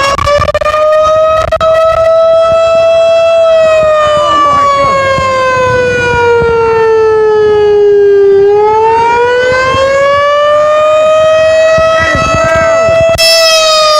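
Federal Signal STH10 rotating outdoor warning siren sounding at full power for a weekly siren test. It gives one loud, steady wail whose pitch slides slowly up and down, lowest about 8 seconds in. The sound turns duller in the middle and grows bright and harsh again near the end.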